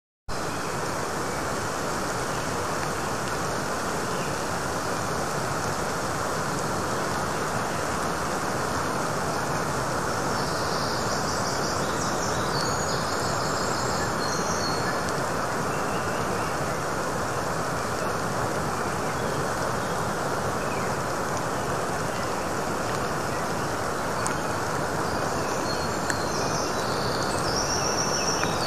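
Steady rain falling, heard as an even hiss.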